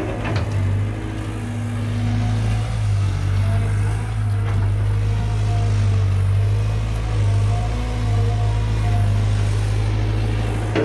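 Caterpillar 320 GC excavator's diesel engine running at a steady pitch, with a brief knock just after the start.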